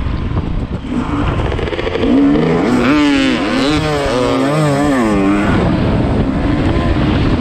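Dirt bike engine racing under throttle, its pitch climbing and dropping several times as the rider works the throttle and gears, loudest through the middle.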